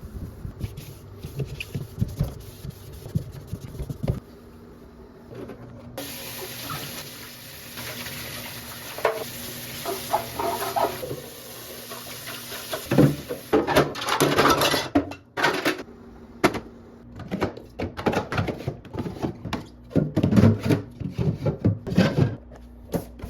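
A tap runs for several seconds while dishes or containers clatter under it. Then comes a string of knocks and clatters from items being handled and set down, as in washing out fridge containers and shelves.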